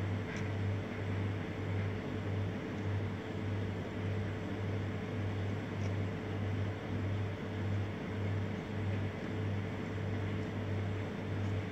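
A steady low machine hum that throbs about twice a second, over a faint even hiss, with a couple of faint clicks.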